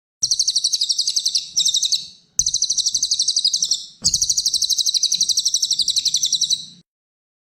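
Cililin songbird singing a high, rapid trill of about ten notes a second, in four bursts with brief breaks; the longest, last burst stops a little before seven seconds in.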